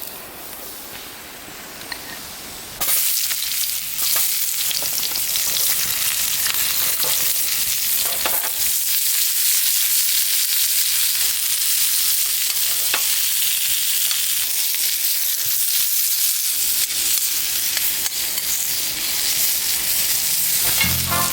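Food sizzling and frying in a hot pan, softer for the first few seconds, then louder and steady from about three seconds in.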